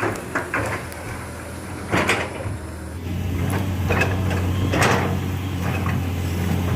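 Excavator at work: its diesel engine running steadily and coming up louder about three seconds in, with several sharp knocks from the machine.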